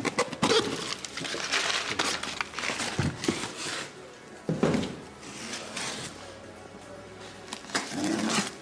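Cardboard boxes being handled and pulled apart, scraping and rustling with sharp knocks, busiest in the first few seconds and again briefly near the middle and end. Quiet background music plays under it.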